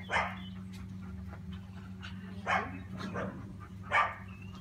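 Four short, breathy puffs of an animal's breath, irregularly spaced, the loudest ones near the start and near the end, over a steady low electrical hum.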